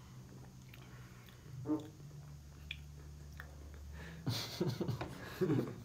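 Small lip smacks and mouth sounds of someone tasting a soda he has just sipped, over a low steady hum; a man's voice comes in about four seconds in.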